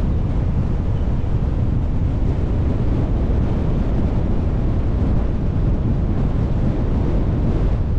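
Steady low rumble of road and wind noise from a car being driven, with wind buffeting the microphone.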